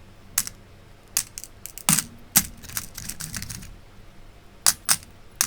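Small metal parts of a MIWA PS dimple-key lock cylinder clicking and clinking as they are handled: irregular sharp clicks, a heavier knock about two seconds in, then a quick run of small clinks.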